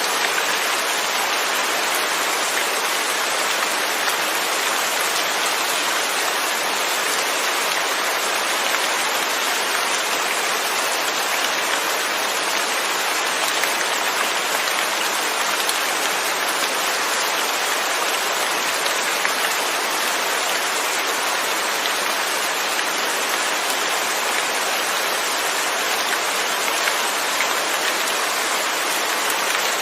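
Steady, heavy rain falling, an even hiss with no thunder.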